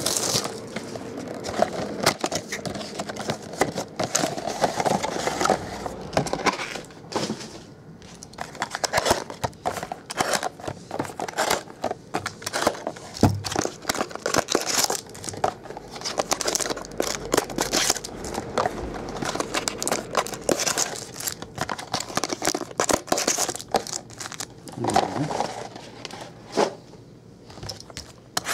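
Plastic shrink wrap being torn off a box of trading cards and the card packs handled: a long run of irregular crinkling, tearing and rustling.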